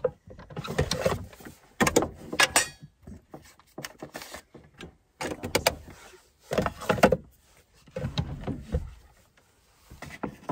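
Irregular knocks, clatter and rustling of things being handled and moved about inside a small van, with short pauses between.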